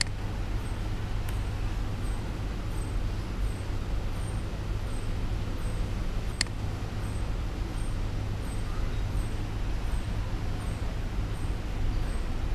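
Steady low background rumble and hiss, broken by a few sharp computer mouse clicks, the clearest about six seconds in.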